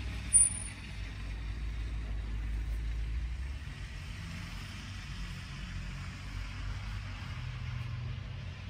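Low rumble of a road vehicle's engine running nearby, easing a little about three and a half seconds in, with one brief sharp high squeak about half a second in.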